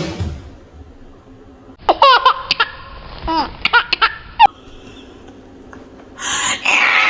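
Laughter in short, high-pitched bursts with a few sharp clicks among them, then a breathy outburst near the end.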